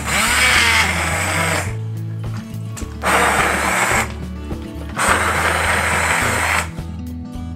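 Handheld immersion blender running in three bursts of a second or two each, its blade grinding a thick stew of meat, vegetables, rice and oats into a paste.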